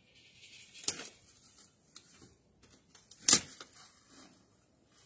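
Two sharp taps about two and a half seconds apart, the second louder, with faint scattered clicks and rustling between.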